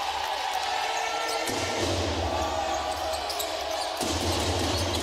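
Indoor basketball game: the ball bouncing on the hardwood court over steady crowd noise in a large, echoing hall. The background changes abruptly twice, about a second and a half in and about four seconds in.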